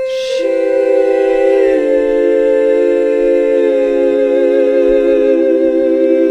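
Background music: voices humming or singing a sustained a cappella chord, the held notes shifting to new chords a few times, with a slight waver.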